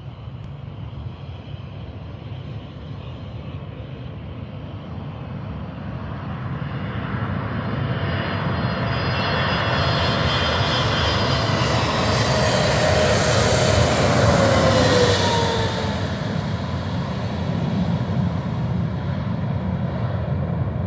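Boeing 777-300ER's twin GE90 turbofan engines on landing: a jet roar that builds over several seconds and is loudest about twelve to fifteen seconds in as the airliner passes low over the runway, with whining tones that fall in pitch as it goes by, then easing a little as it rolls out.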